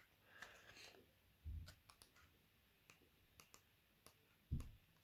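Faint handling noises: scattered light clicks and a short rustle near the start, then two soft low thumps, about a second and a half in and near the end, the later one the loudest. These are the paper leaflets and packaging from a mobile phone's retail box being handled and set down.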